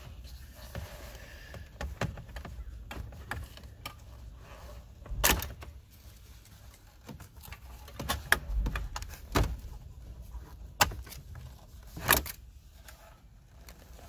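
Plastic centre console trim and cup holder assembly being worked loose and lifted out: a string of sharp plastic clicks and knocks as clips let go and parts bump. The loudest come about five and eight seconds in.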